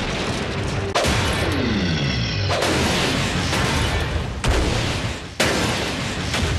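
Dubbed-in battle sound effects for a robot fight: several sudden blasts and impacts, one with a tone that falls in pitch about two seconds in, over background music.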